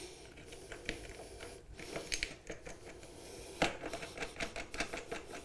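Hands working a toilet flange's brass closet bolts, plastic flange ring and plastic shims: scattered light clicks and taps, with a few sharper clicks.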